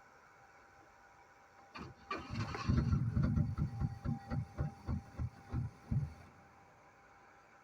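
Starter motor cranking the Jaguar XJ6's straight-six engine for about four seconds, turning it over in even rhythmic pulses without it catching. This is a no-start: the engine cranks but does not fire.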